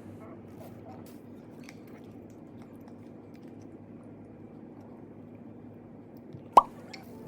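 Someone chewing a chewy garaetteok rice-cake stick, with faint small clicks and one sharp, loud pop about six and a half seconds in.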